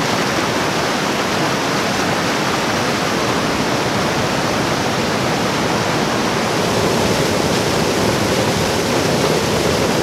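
Waterfall and the rocky cascade below it in full flow: a steady rush of falling and tumbling water. The river is running high.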